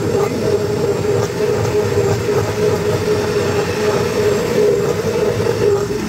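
Gradiente Revolution Glass 1000 W blender running steadily on its lowest speed, blending frozen fruit pulp into juice. The motor gives a constant tone over the churning noise of the jar.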